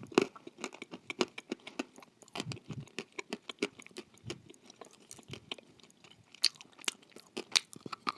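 A person chewing crunchy food close to the microphone: a quick, irregular run of sharp crunches and crackles.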